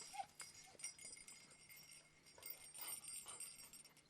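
Near silence, with faint jingling from the hounds' collars and a brief faint dog whimper at the start.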